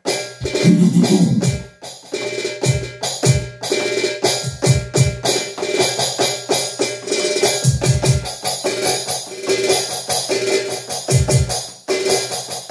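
Electronic drum kit with a Roland TD-30 module being played hard: dense strikes on the snare, toms and cymbals with low kick and tom hits, over a backing music track.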